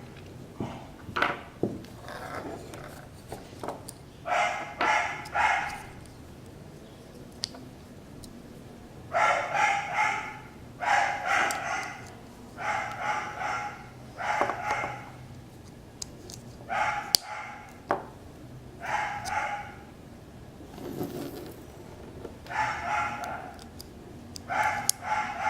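A dog barking repeatedly, in short runs of two to four barks with pauses between.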